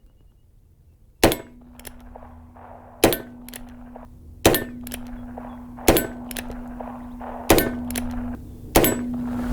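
Six shots from a Heritage Barkeep 2-inch single-action .22 LR revolver firing CCI Velocitor rounds, about one every one and a half seconds, with fainter clicks between the shots. A steady low hum runs behind them from the first shot on.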